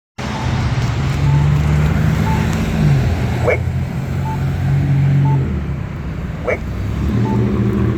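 Campbell accessible pedestrian signal pushbutton sounding its locator tone, a short beep about once a second, over the engine hum of traffic at the intersection. A few brief chirps fall in pitch over it.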